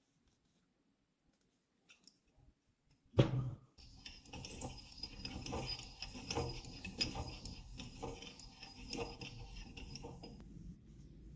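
A hand-cranked meat grinder: one sharp metal knock, then about six seconds of continuous metallic scraping and clinking as it is turned, with louder pulses about once a second.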